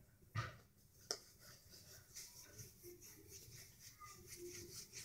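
Near silence in a small room: faint handling noise with two soft taps in the first second or so.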